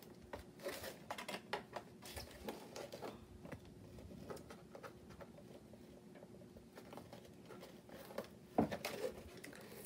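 Fingers scratching and picking at a cardboard toy box, with light taps and rustles of the packaging, busier in the first few seconds. A sharper knock comes near the end.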